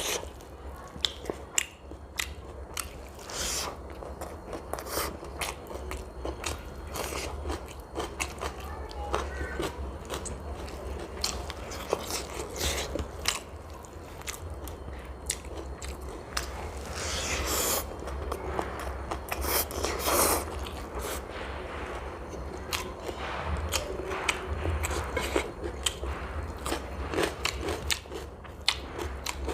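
Close-miked chewing and biting of Indo-Chinese food (fried rice and veg Manchurian), with many small wet clicks and smacks and a few louder crunches. A steady low hum runs underneath.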